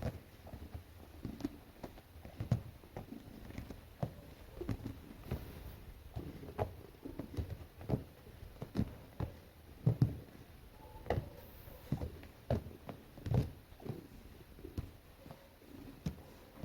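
A domestic cat making soft noises while being petted. Irregular soft thumps and rubbing sounds come about once or twice a second.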